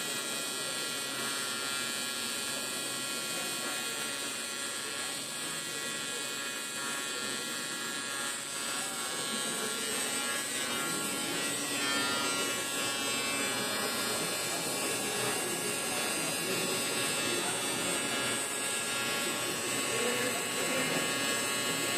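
Steady electrical buzz with a high whine from welding equipment, running without a break.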